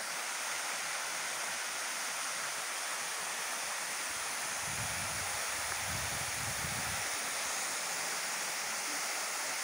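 Waterfall: a steady rush of water falling down a rock face, with a brief low rumble about five seconds in.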